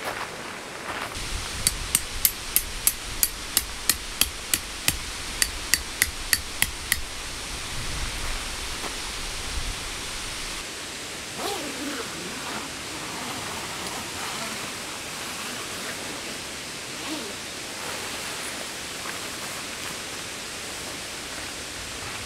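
A hammer driving a tent peg: a run of about eighteen sharp strikes, about three a second, stopping about seven seconds in. After that, only a steady background hiss.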